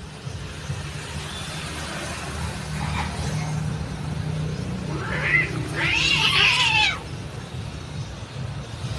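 Domestic cats scuffling: one cat gives a short cry about five seconds in, then a longer, louder yowl of about a second that drops in pitch at its end. A low steady hum runs underneath.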